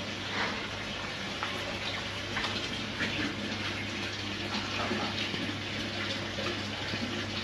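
Hands scrubbing soap lather into a wet dog's coat: a steady soft wet rubbing with small scattered ticks, over a steady low hum.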